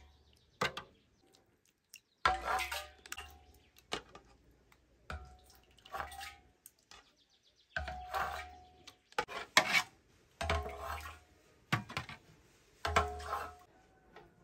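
A metal ladle scooping thick yogurt from a metal pot and tipping it into a clay butter churn, over and over. Wet slops and plops mix with the ladle knocking and scraping against the pot, one scoop every second or two.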